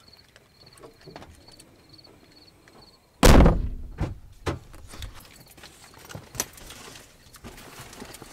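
A car door slams shut about three seconds in, loud and sudden, followed by a few lighter knocks and thumps of people settling into the car.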